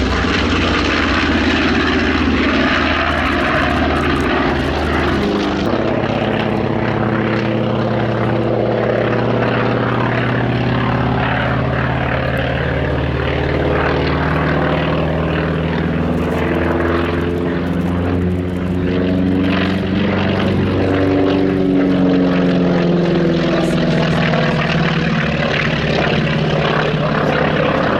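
Radial piston engines of a propeller warbird flying display passes: a steady, loud multi-tone drone whose pitch drifts up and down as the aircraft moves past, changing suddenly in tone about six seconds in.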